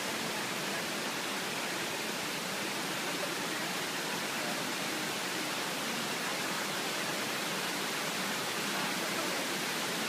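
Steady, even rush of water at Shiraito Falls, a low, wide waterfall where many thin streams spill down a broad rock face.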